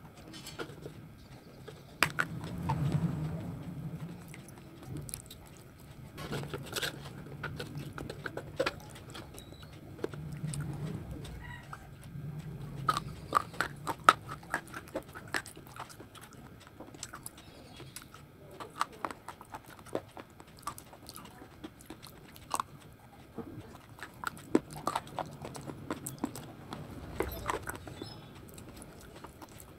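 Close-up biting and chewing of a hard, brittle baked-clay slab: irregular sharp crunches and crackles as pieces break between the teeth, with stretches of low, muffled chewing in between.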